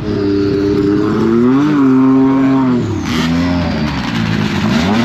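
Snowmobile engine revving, its pitch climbing and falling several times, with a drop about three seconds in and a dip and climb again near the end.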